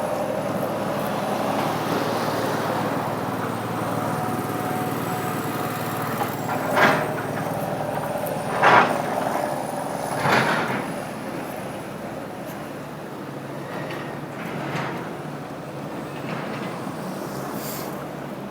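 Steady outdoor street noise, a continuous rushing hiss and rumble, with three short, louder bursts near the middle.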